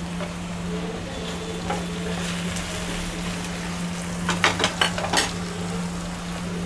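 Raw plantain cubes sizzling as they fry in oil in a nonstick pan. About four seconds in, a spoon scrapes and taps against the pan a handful of times as the pieces are stirred.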